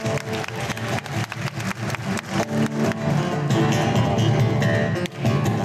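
Acoustic guitar played solo, a fast rhythmic part with frequent sharp percussive hits among the notes.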